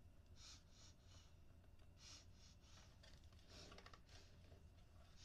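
Near silence: faint room hum with soft short rustles and a quick run of small clicks about three and a half seconds in.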